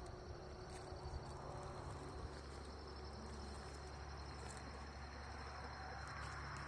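Faint, steady chirring of insects such as crickets, over a low steady hum.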